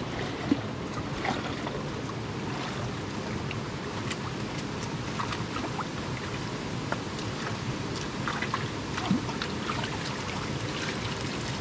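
Steady rush of flowing stream water, with small splashes and ticks scattered through it.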